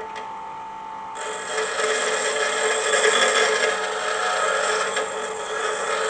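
Electric grinder running, first spinning freely with a steady whine, then about a second in the wheel bites and it grinds the end of an M12 bolt down to a taper, a loud, harsh, steady grinding.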